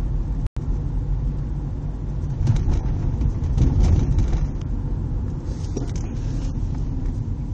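Low rumble of a 2002 Subaru Outback's 2.5-litre flat-four engine and road noise from inside the cabin, driving at low revs under light throttle. The sound cuts out for an instant about half a second in.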